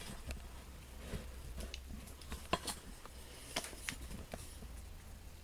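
Light clicks and taps of items being handled, about eight scattered at irregular intervals over a faint low hum.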